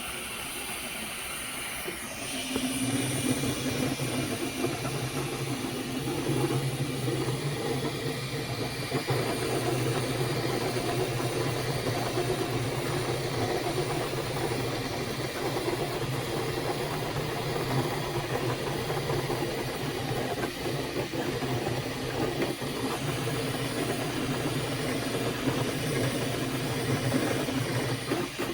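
Flashforge Adventurer 5M 3D printer running mid-print: a steady mechanical hum from its motors and cooling fans, with a hiss above it, getting louder about two and a half seconds in.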